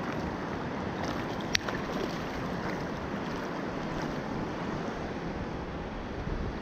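River water rushing steadily around a wading angler, with one sharp tick about one and a half seconds in.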